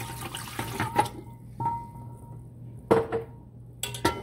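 Water poured from a glass into a large steel cooking pot for about the first second, then several clinks and knocks of steel cookware as a small steel bowl is set in the water inside the pot. The loudest knock comes about three seconds in and rings briefly.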